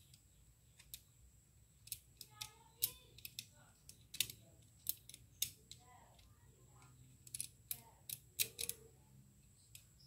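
Metal clicks and clacks of a new Toyota All New Avanza/Xenia front-left car door lock assembly being handled, its latch and levers snapping as they are worked by hand, in an irregular string of sharp clicks from about two seconds in until near the end.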